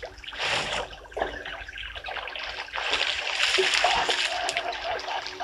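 Elephants splashing and sloshing water while drinking and wading in a shallow waterhole, in irregular noisy surges that grow stronger in the second half.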